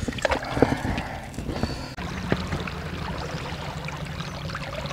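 Light splashes and knocks around a small inflatable boat. About two seconds in, a small boat motor starts and runs with a steady low hum, with water gurgling along the hull.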